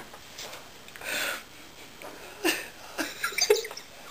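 A man laughing helplessly in breathy, near-silent bursts rather than voiced laughs: one long breathy burst about a second in, then a quicker run of short bursts in the last second and a half.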